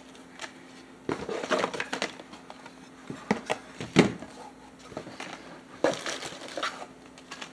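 Small packaged miniatures being lifted out and set down: plastic bags and card packaging crinkling, with a few light knocks, in three short spells with pauses between.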